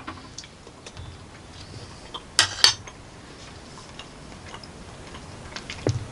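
A table knife clinking and scraping against a metal plate, with a pair of sharp clacks about two and a half seconds in and scattered light clicks elsewhere.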